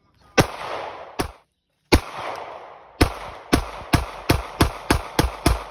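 Semi-automatic pistol fired about eleven times: three spaced shots, then a quick string of roughly three shots a second. Each report trails off in an echo.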